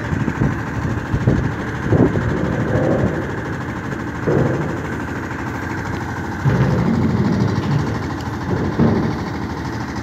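Boat engine running steadily, with louder surges about two seconds in, a little after four seconds, and from about six and a half seconds in.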